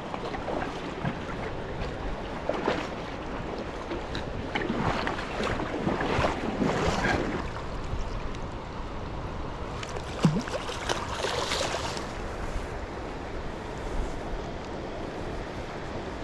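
Creek water running over a shallow rocky riffle, with wind on the microphone and several brief louder swishes of water.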